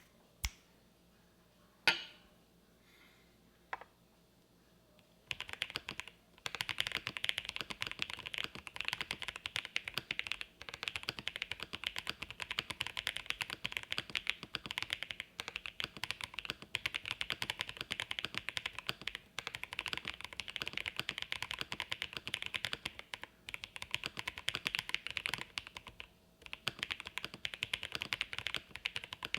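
Fast typing on a mechanical keyboard with lubed Holy Boba tactile switches in a gasket-mounted polycarbonate plate, no case foam, and GMK keycaps: a steady stream of keystrokes with a thock-pop sound. A few lone sharp clicks come first, and the continuous typing starts about five seconds in, with brief pauses.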